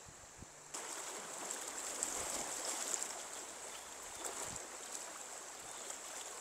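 Stream water running steadily, beginning abruptly under a second in.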